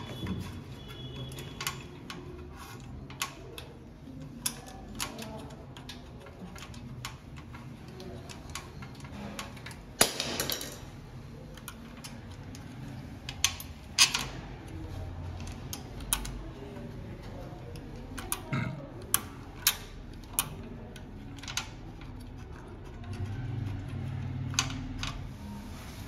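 Small metal clicks, ticks and rattles from the parts of an opened electronic rim door lock being handled with fingers and a screwdriver while its outer key cylinder is removed, with a brief louder rasp about ten seconds in.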